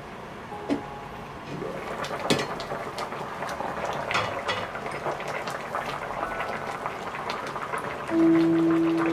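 Braised beef short rib sauce simmering in a stainless pot, bubbling with irregular small pops and crackles. Near the end a loud held musical note comes in over the bubbling.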